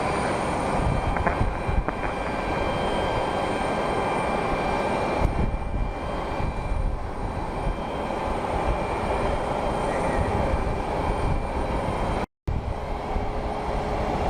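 Jet aircraft engines running with a steady rush of noise and a high, thin whine. The sound cuts out completely for a moment about twelve seconds in.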